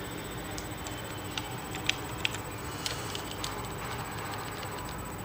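Scattered light clicks at a computer, about ten in irregular succession, over a steady low room hum.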